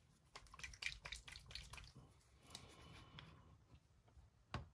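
Small clicks and taps of a paint dropper bottle and a jar being handled and set down on a cutting mat, a quick run of them in the first two seconds and one sharper knock near the end.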